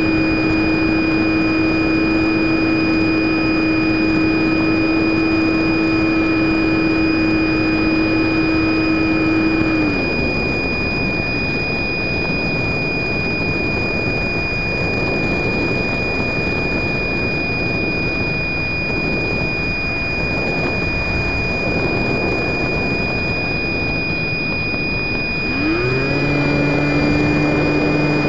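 FPV Raptor RC plane's electric motor heard from the onboard camera: a steady whine that cuts off about ten seconds in, leaving rushing air noise as the plane glides with the throttle off. Near the end the motor spools up with a quick rising whine and settles into a steady drone again.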